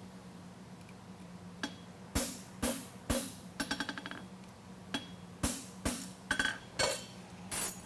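Farrier's hammer striking a steel concave horseshoe on the anvil, about ten sharp ringing blows roughly half a second apart with a short pause in the middle, as the shoe's branch is bent and flattened. A steady low hum runs underneath.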